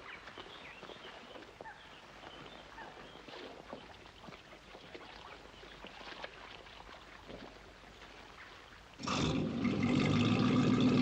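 Faint trickling water with small knocks, then about nine seconds in a motorboat engine starts and runs loudly and steadily.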